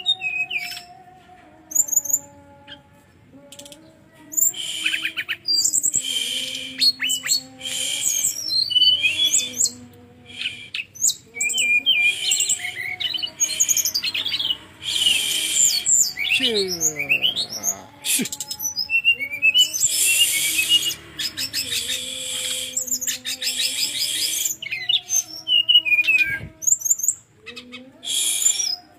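Brown-chested jungle flycatcher singing a long, varied song of rapid chirps, trills and whistled sweeps in dense phrases, with steady lower tones beneath it.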